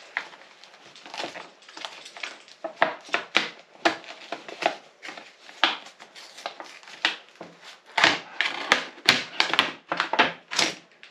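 Product packaging being opened and handled: an irregular run of crinkles, rips and clicks, busiest near the end.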